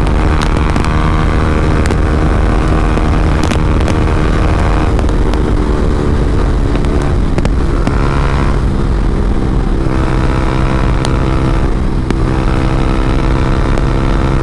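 Yamaha R15M's single-cylinder engine running at highway speed through an SC Project full-system aftermarket exhaust. The loud exhaust note shifts in pitch several times as the throttle is eased and the bike slows a little.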